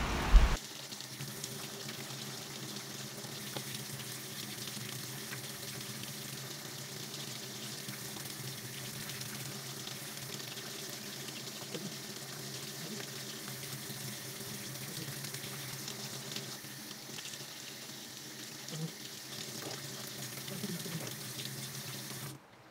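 Tap water running steadily into a sink while hands are washed and rubbed, over a steady low hum. A brief sharp knock comes at the very start.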